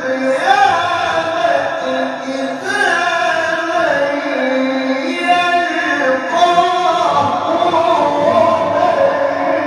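A male qari reciting the Quran in the melodic tilawah style into a microphone: one voice, long held, ornamented notes that bend and slide between pitches.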